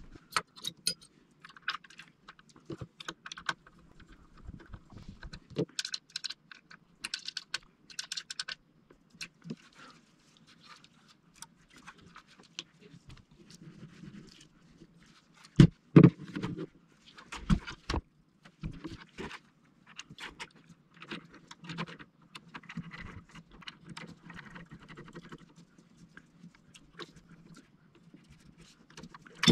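Hand assembly of tennis ball machine parts: irregular clicks, clinks and knocks of the parts and hand tools being handled on the workbench, with a few louder knocks about halfway through.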